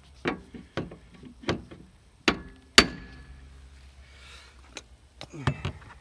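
Steel door-hinge pin-puller hooked onto a Chevy Blazer's upper hinge pin being struck: five sharp metal-on-metal impacts with a short ring, then a few lighter knocks near the end as the pin is driven out past the door spring.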